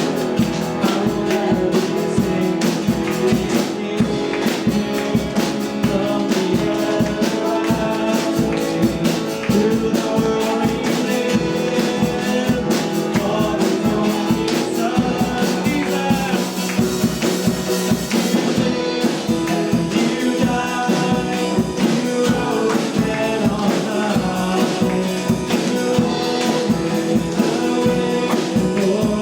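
Gospel-style worship song played by a band, with a steady drum-kit beat and tambourine under singing.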